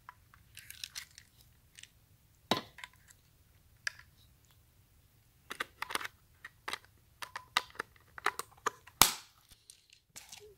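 Scattered clicks, taps and rubbing from hands handling a plastic Daisy Powerline 1700 CO2 BB pistol, with a sharper knock about two and a half seconds in and the loudest one about nine seconds in.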